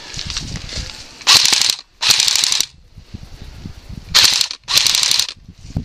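Airsoft electric rifle (AEG) firing four short full-auto bursts, each about half a second, in two pairs; the gearbox cycles with a fast mechanical rattle.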